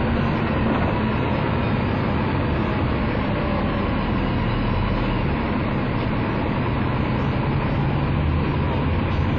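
KMB ADS-class three-axle double-decker bus's diesel engine idling steadily while the bus stands still, its low note growing a little stronger near the end.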